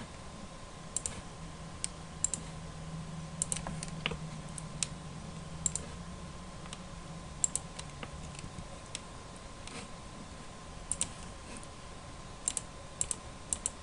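Scattered sharp clicks of a computer mouse and keyboard at irregular intervals, several in quick pairs, over a faint steady electrical tone.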